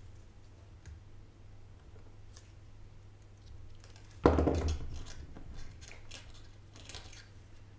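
A single sudden clunk about four seconds in, fading within about half a second, followed by a few faint clicks, over a low steady hum.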